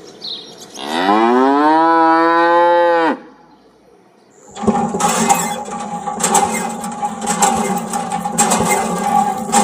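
A cow mooing: one long call that rises in pitch, holds, and drops off at the end. About four and a half seconds in, a steady mechanical whirr with rapid clicking starts.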